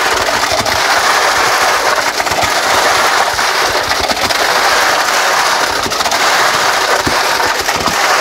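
Wet concrete pumped through a flexible concrete-pump hose, spattering out of the hose end into a foundation trench: a loud, steady crackling and splattering rush.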